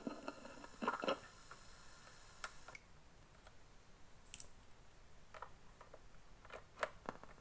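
Faint, irregular clicks and handling noises, a few seconds apart, as a wired microphone and its plug are picked up and handled.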